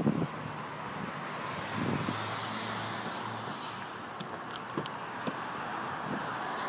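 Steady road-traffic noise, with a few light clicks and taps about four to five seconds in.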